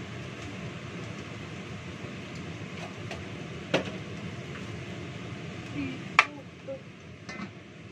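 Metal kitchenware clanking as a bowl and a wok are handled on the counter: a sharp clank just under four seconds in and a louder one about six seconds in, with a few lighter knocks, over a steady background hum.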